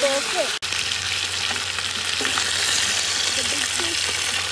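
Fish frying in hot coconut oil in a deep pot, sizzling steadily, as a wooden spatula stirs and turns the pieces. The sound drops out for an instant about half a second in.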